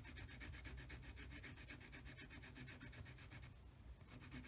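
Faint scratching and rubbing of a Prismacolor white coloured pencil worked over layered pencil colour on mixed media paper.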